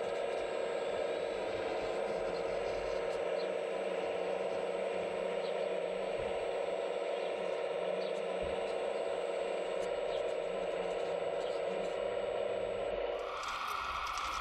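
Hydraulic pump of a radio-controlled model excavator running with a steady whine, with a few light clicks. About a second before the end the whine shifts up to a higher pitch that keeps rising.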